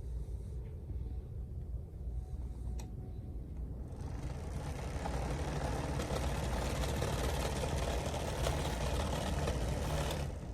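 Pelonis PHTA1ABB space heater's fan running with a steady low hum and a rush of air that grows louder about four seconds in and drops near the end; the running noise is not as quiet as advertised.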